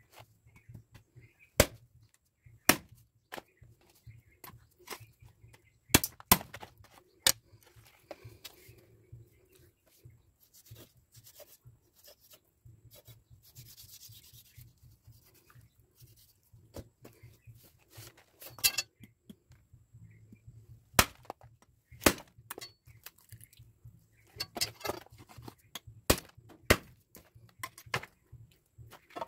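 Knife chopping through a pig head on a wooden stump block: about a dozen sharp chops at uneven intervals, with scraping and slicing through meat and bone between them.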